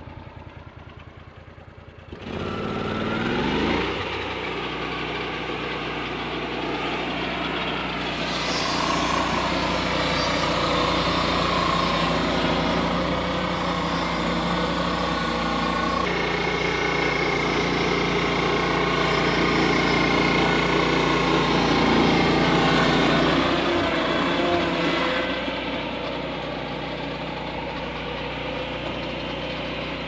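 Lucas swing-blade portable sawmill's Kohler Command PRO engine running slow, then throttled up with a rising pitch about two seconds in. From about eight seconds the circular blade saws through a log with a steady rasping hiss over the engine. The cutting noise stops about five seconds before the end, leaving the engine running at speed.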